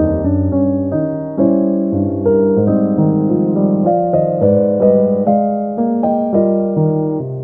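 Calm, slow piano music: chords and single notes struck one after another, each ringing and then fading.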